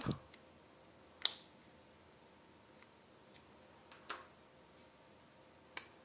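Three small, sharp metallic clicks spread over several seconds, the loudest about a second in: a tiny flathead screwdriver working under the metal retaining clip of a CR2032 coin-cell holder as the battery is pried out.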